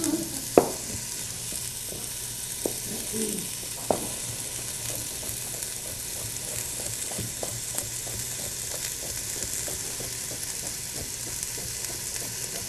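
Carrots and onions sizzling in a pot as they sauté. From about five seconds in, a knife slicing celery on a plastic cutting board adds light, even strokes, about three a second.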